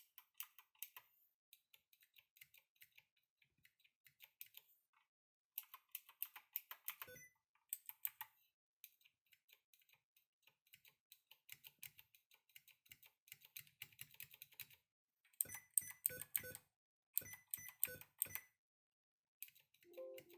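Typing on a mechanical keyboard with clicky Gateron Blue switches: runs of quick key clicks with short pauses, growing louder and sharper in the last third.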